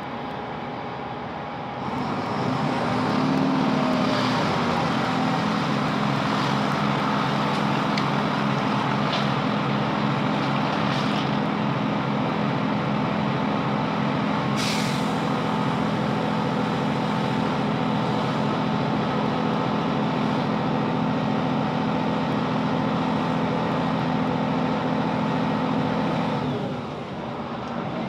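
Class 165 diesel multiple unit heard from inside the carriage: its underfloor diesel engine comes up to power about two seconds in with a rising note, then drones steadily over rail and running noise with a few scattered clicks, and the engine note drops away near the end.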